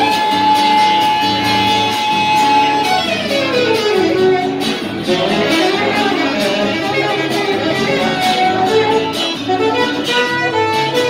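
Live band music: a lead instrument holds one long high note for about three seconds, then slides down into a winding melody over a guitar accompaniment.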